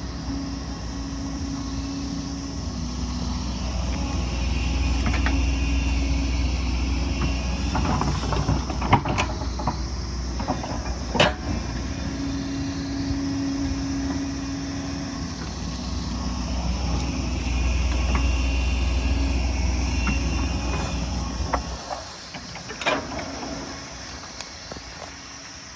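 Excavator's diesel engine running, swelling twice as it works under load, with a few sharp knocks. It drops back to a lower, quieter run near the end.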